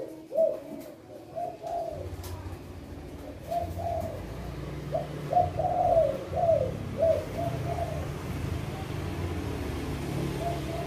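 Caged spotted doves (tekukur) cooing in repeated phrases of short, deep notes, loudest in the middle and coming again near the end. A low, steady rumble sets in about two seconds in.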